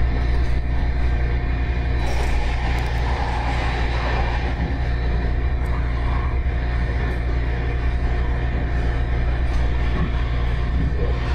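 Steady low rumble of a MARTA heavy-rail train car running at speed, heard from inside the car, with a few steady humming tones above the rumble.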